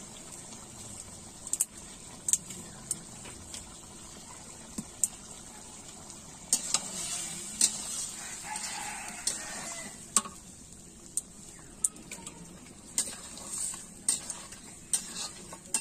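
Chicken pieces sizzling as they fry in a black wok, stirred with a spatula that scrapes and clinks against the pan in many sharp, irregular clicks. The stirring is busiest and loudest a little before the middle.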